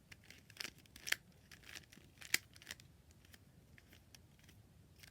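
Plastic twisty puzzle being handled and twisted in the hands, a string of irregular sharp plastic clicks and clacks, loudest about a second in and again a little after two seconds, thinning out in the second half.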